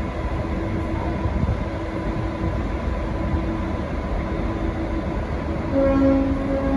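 Diesel-electric locomotive of V/Line's N class running steadily at idle, a low rumble with a faint steady hum. Near the end a short pitched tone sounds for about a second.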